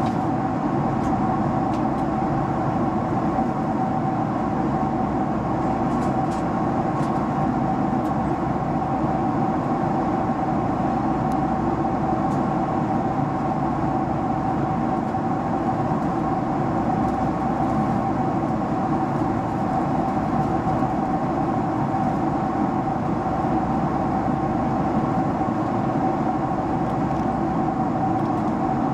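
Steady cabin noise of a Boeing 767-300 in its climb, heard from a window seat behind the wing: a constant drone of the turbofan engines and rushing air, with a steady whine on one pitch.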